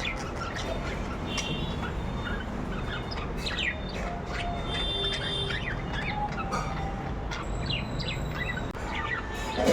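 Budgerigars chirping and chattering: many short, quick chirps and brief warbles, one after another, over a steady low background noise.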